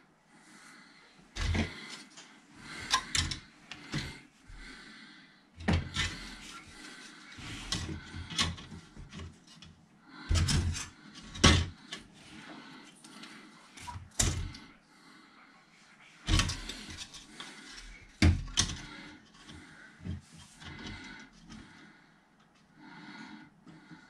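Plastic model kit parts being handled by hand on a workbench: irregular clicks, taps and knocks as the plastic body shell, wheels and parts trees are picked up, turned over and set down.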